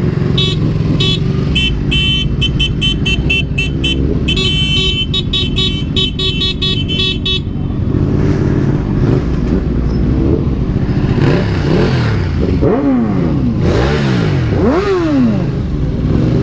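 Motorcycle engines idling, with a horn honked in quick repeated toots, about three a second, for the first half. Later an engine is revved up and down several times in quick succession: rev bombing.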